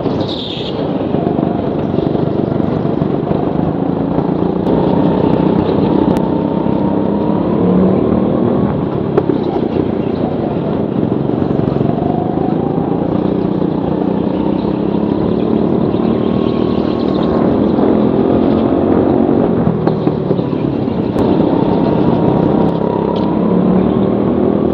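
Go-kart engine heard from on board at racing speed, its pitch rising and falling every few seconds as the kart accelerates out of corners and backs off for the next.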